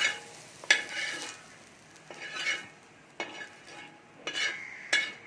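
Metal spatula scraping and stirring fried onion and tomato on a hot tava, in about six strokes roughly a second apart, each with a light metallic ring, over a faint sizzle.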